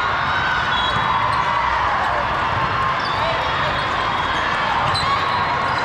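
Ball bouncing on a hard gym floor amid crowd chatter, with short high squeaks scattered throughout.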